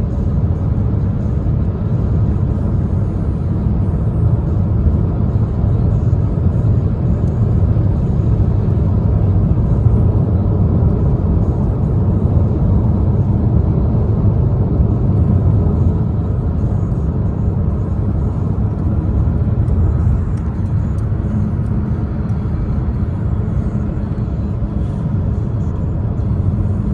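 Steady road and engine rumble heard inside the cabin of a 2015 Chevrolet Cruze while it is being driven.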